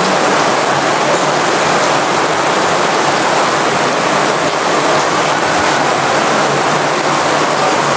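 Steady rain falling on a fabric canopy tent, an even, unbroken hiss.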